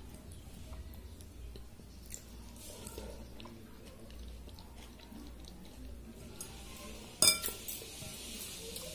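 Fingers squelching through water-soaked rice (panta bhaat) in a ceramic bowl, with soft wet sounds and small clicks. One sharp clink against the bowl comes about seven seconds in, followed by a few lighter ticks.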